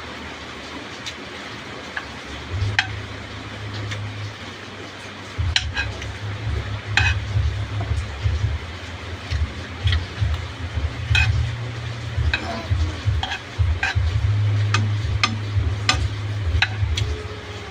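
Spoon or fork clicking and scraping against a frying pan while food is eaten from it, with sharp irregular clinks over a steady hiss. A heavy low rumble joins about five seconds in.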